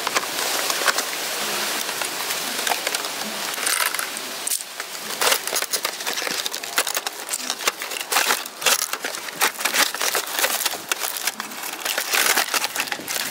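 Cardboard box and plastic packaging being handled close up: continuous rustling and crinkling with many small scrapes and clicks as a plastic toy blaster is pulled out of the box.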